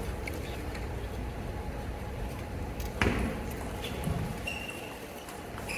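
Low murmur of a hushed arena, broken by a sharp tap of a table tennis ball about three seconds in, a softer knock about a second later, and a brief high squeak.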